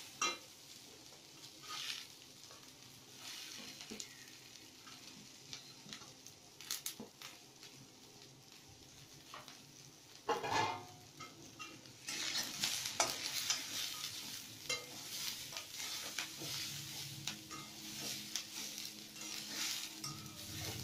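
Onions and mixed vegetables sizzling in a metal kadai, with scrapes and clinks of a steel spatula against the pan as they are stirred. The sizzle is faint at first; there is a louder clatter about ten seconds in, and the sizzle and stirring grow louder and busier from about twelve seconds in.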